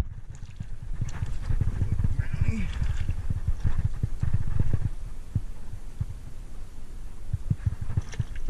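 Irregular low thumps and rubbing as hands and clothing handle gear against a chest-mounted camera. A faint voice-like sound comes about two and a half seconds in.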